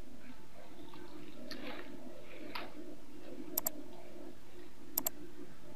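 Computer mouse clicking: two quick double clicks about a second and a half apart, over a steady low hum.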